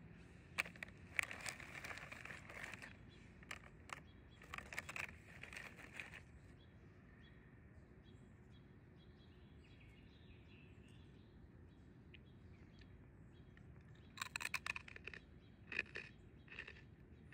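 A snack bag crinkling in two stretches as a piece of crispy seaweed snack is taken out. Near the end come crisp crunching bites of the snack, with faint birdsong throughout.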